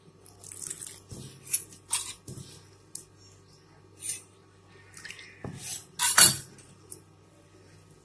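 Hand mixing rice-flour dough with water in a stainless-steel bowl: irregular scraping and squishing of the flour against the bowl, with light metal clinks on the steel. The loudest scrape comes about six seconds in.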